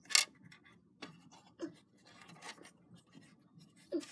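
Small plastic toy figure and toy treehouse handled: a sharp plastic click just after the start, then scattered light taps and scrapes.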